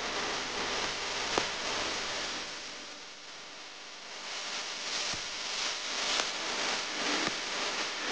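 Steady hiss-like noise with a few sharp clicks and taps, the clearest about a second and a half in, as a smartphone is handled and set down on a table.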